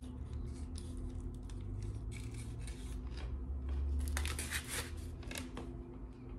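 Close-up eating sounds from a bite of a Chipotle burrito: crackly, clicky chewing and mouth noises, with a denser, louder run of crackles about four seconds in.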